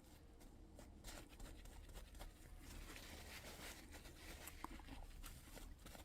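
Near silence with faint scattered clicks and light rustling: hands handling and wiping old grease out of a vacuum wiper motor part.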